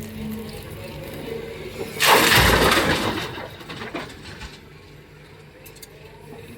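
Heavy construction machinery running, with a loud rushing burst about two seconds in that dies away over about a second.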